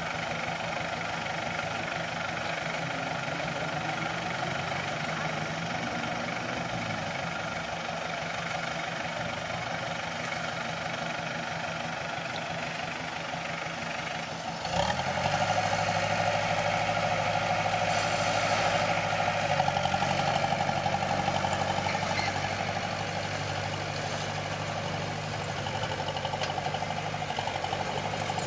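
Diesel engine of heavy construction machinery running steadily. About halfway through it gets suddenly louder, with a stronger low hum, and it stays that way.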